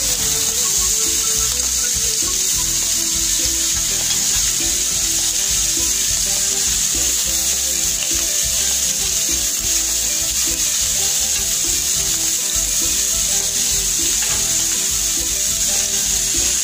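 Prawns sizzling steadily in oil on a hot ridged grill pan.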